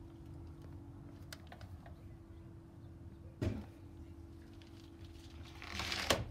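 A steady low hum over a low background rumble, with one sharp knock about three and a half seconds in and a brief scraping rustle ending in a click near the end.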